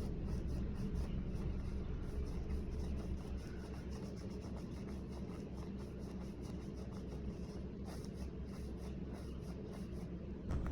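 Light scratchy rubbing with scattered small clicks, like objects being handled, over a steady low hum.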